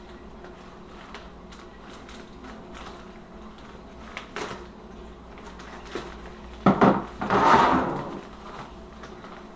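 Plastic poly mailer being cut open with scissors and handled: small snips and crinkles, then a sharp clatter about two-thirds of the way through as the scissors are put down on the table, followed by about a second of louder plastic rustling.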